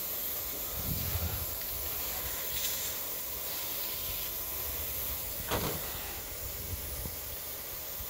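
Aerosol can of white lithium grease hissing as it is sprayed onto a tire-plug insertion tool, with a short brighter burst about two and a half seconds in.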